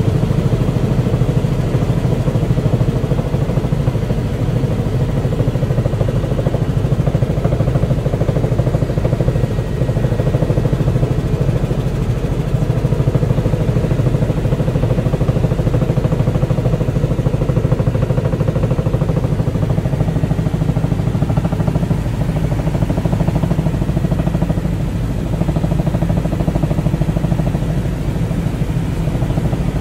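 Steady drone of a helicopter's engine and rotor heard from inside the cabin in cruising flight, deep and unchanging.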